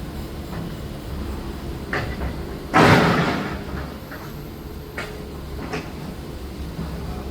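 Building demolition: a loud crash of falling debris about three seconds in that dies away over about a second, with a few smaller knocks before and after, over a steady low machine rumble.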